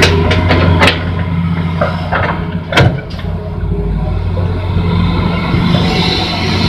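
Hitachi Zaxis 210 excavator's diesel engine running steadily under load as the machine swings its bucket, with a few sharp knocks in the first second and a louder one about three seconds in.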